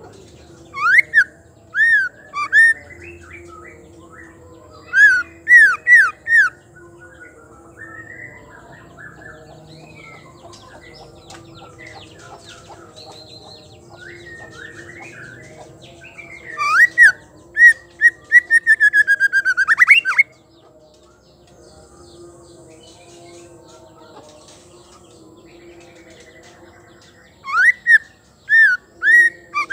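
White-rumped shama singing: loud phrases of sharp, clear whistled notes in four separate bursts, with softer twittering between them. In the third burst, about two-thirds of the way through, there is a fast run of notes that climbs in pitch.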